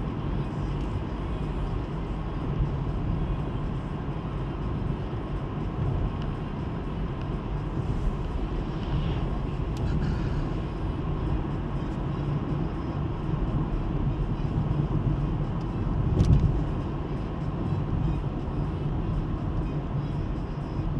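Steady road and engine noise inside a car cruising along, from a 1.7 CDTI diesel and its tyres on the road. There is a single louder thump about three-quarters of the way through, as from a bump in the road.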